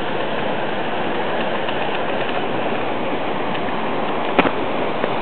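Steady rush of a waterfall, an even noise of falling water, with one short knock about four seconds in.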